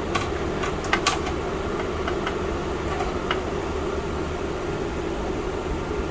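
Steady mechanical hum of room machinery, like a fan or air conditioner, with a few light clicks and knocks in the first second or so and a couple of fainter ones later, from a metal bracket being handled and set into a computer case.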